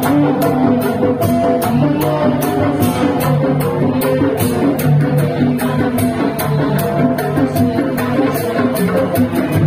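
Loud tanjidor-style kuda renggong procession music: drums keep a quick, steady beat under a held, sustained melody.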